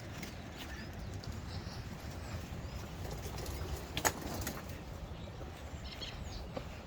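Outdoor ambience: a steady low rumble with faint bird calls, and one sharp click about four seconds in.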